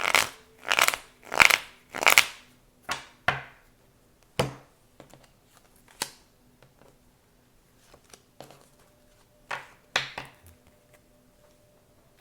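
Tarot deck being shuffled and handled: six quick, sharp rustling bursts of cards in the first few seconds, then a handful of single snaps and taps as cards are laid down.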